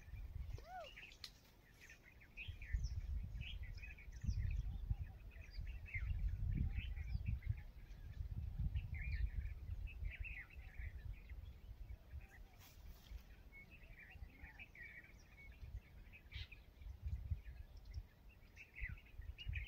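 Many small birds chirping and calling in short, scattered notes, over a low, gusting rumble of wind on the microphone.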